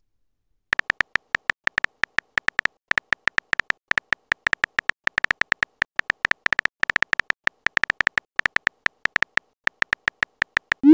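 Rapid run of short electronic keyboard tap sounds from a texting app's animated on-screen typing, about seven clicks a second as a message is typed out letter by letter.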